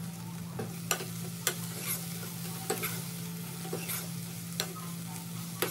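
Chopped spring onions sizzling in a wok while a metal spoon stirs them, the spoon knocking and scraping on the pan at irregular moments, about nine times.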